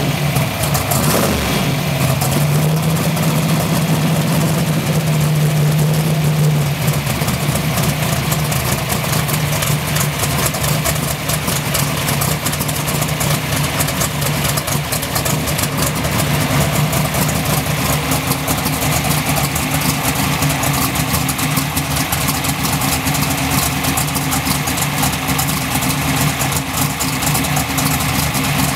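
Alcohol-injected twin-turbo pro mod V8, fed by twin 88 mm Precision turbos, idling steadily during its warm-up. A couple of seconds in, the idle is held slightly higher for about four seconds, then settles back to an even idle.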